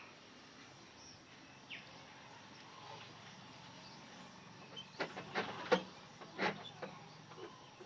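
A person's quick nasal sniffs and breaths, a cluster of short ones about five to seven seconds in, over faint background hiss, as a matchstick tickles the nose to bring on a sneeze.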